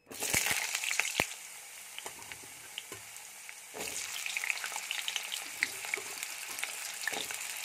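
Potato chunks frying in hot mustard oil in a metal kadhai. The sizzle starts suddenly, with a few sharp clicks in the first second as the pieces go in, then settles into steady crackling that grows louder about four seconds in.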